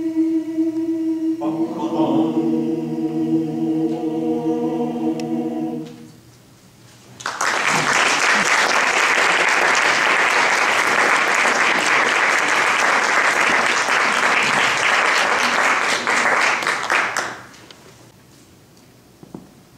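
Mixed choir singing the closing chords of a piece, the last chord held and then released about six seconds in. After a second's pause the audience breaks into applause that lasts about ten seconds and then dies away.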